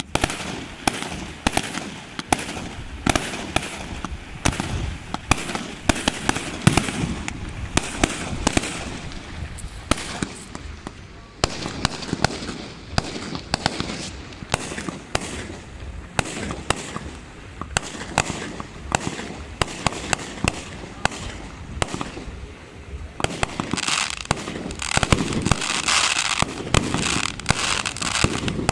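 Fireworks display: a rapid, irregular string of shell launches and aerial bursts, bang after bang. Near the end the crackling grows thicker and hissier.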